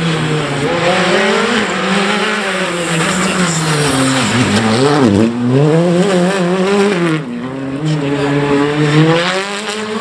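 Hyundai i20 rally car's engine revving hard on a special stage. The pitch drops sharply about four to five seconds in and again about seven seconds in, then climbs each time as it accelerates away.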